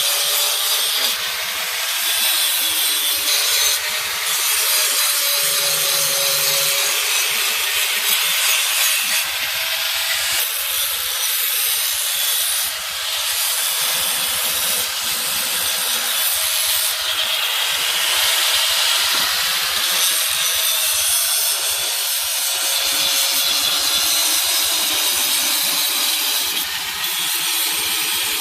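A power tool grinding steel, most likely working a knife blade. It makes a continuous harsh grinding noise with a faint wavering motor tone underneath, steady throughout with only small dips.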